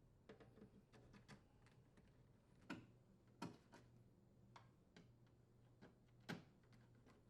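Faint, irregular clicks and taps of a Phillips screwdriver working the mounting screws out of a dishwasher's metal outer door panel, about a dozen in all, the sharpest a little under three seconds, about three and a half seconds and just past six seconds in.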